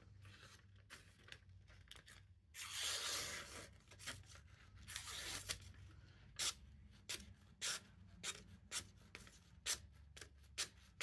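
Freshly sharpened A2 tool steel knife slicing through paper as a sharpness test, faint: one longer swishing cut about three seconds in, then a run of short crisp snicks roughly twice a second in the second half.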